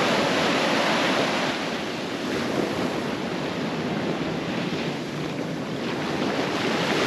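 Ocean surf washing in over a sandy shore, a steady rushing noise that eases and swells as the waves break and run back.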